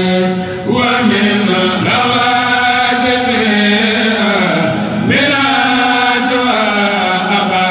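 A male kourel chanting a Mouride khassida together, in long held notes with sliding pitch. A new phrase begins about a second in and another about five seconds in.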